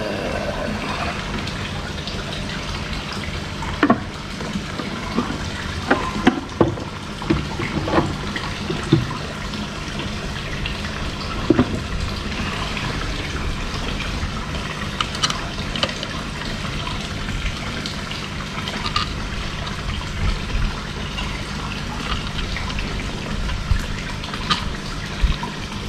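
Steady splash and rush of water pouring into a koi pond, over a low steady hum. Scattered clicks and knocks of a plastic air pump housing being handled and its bolts fitted.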